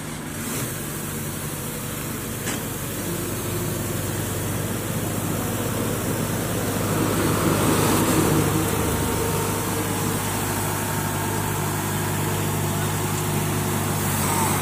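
Sumitomo 160FA tracked excavator's diesel engine running steadily as the machine drives down off a trailer, growing louder about halfway through.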